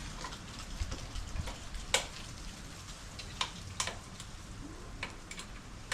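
Scattered sharp metallic clicks and clinks of hand tools, a socket wrench working on metal, over a low steady background hum.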